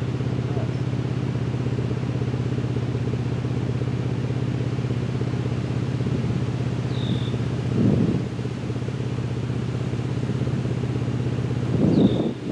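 Vehicle engine idling with a steady low hum. A short high chirp comes twice, and there are two brief louder swells of noise, about eight seconds in and near the end.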